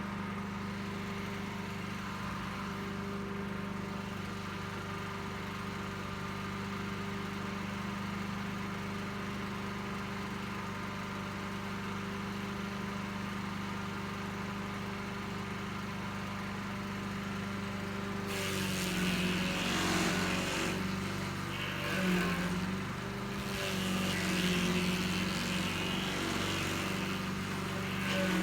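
Little Beast stump grinder's engine running steadily; about two-thirds of the way through, the cutter wheel starts biting into the stump, adding a harsh grinding hiss that swells and eases in surges.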